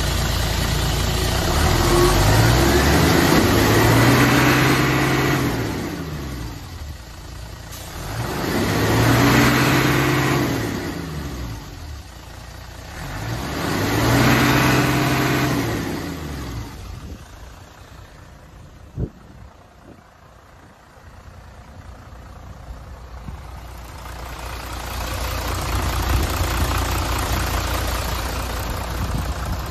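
Mitsubishi Fuso Fighter's 6D17 inline-six diesel engine revved three times, each rev rising and falling in pitch over a few seconds, then settling back to idle. A single sharp click about two-thirds in; the idle grows louder near the end.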